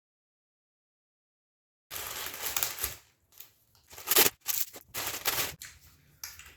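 Handling noise from unpacking a washing machine stand: rustling packaging, then a run of sharp clicks and clacks from its parts, the loudest about four seconds in. The first two seconds are dead silence.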